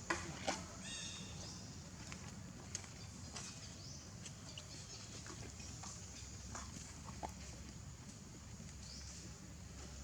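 Faint outdoor ambience: scattered small clicks and rustles over a steady low hum, with a brief high-pitched call about a second in.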